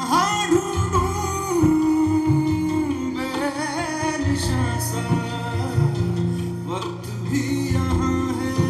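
Music: a song with a singing voice holding long, bending notes over guitar and a steady bass line.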